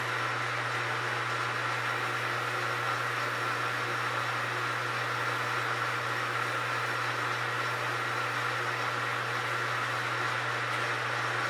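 Metal lathe running steadily while facing a half-inch steel plate: a steady motor hum under an even hiss, the hum stopping abruptly at the very end.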